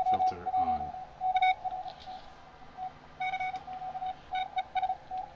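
Morse code (CW) signal from an Oak Hills OHR 100A amateur radio receiver through a speaker: a single steady mid-pitched tone keyed on and off in short and long elements, over faint band hiss with a few brief clicks.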